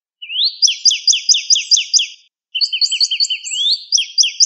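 A bird chirping: fast runs of sharp, repeated chirps, about five a second, each run opening with a quick upward sweep. A brief break comes about halfway through, and then the chirping picks up again.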